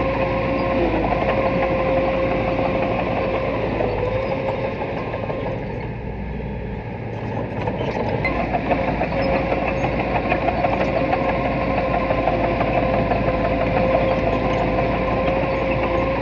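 Diesel engine of small earthmoving machinery running steadily, with a high steady whine over the engine rumble. The sound drops in level about four seconds in and builds back up around eight seconds.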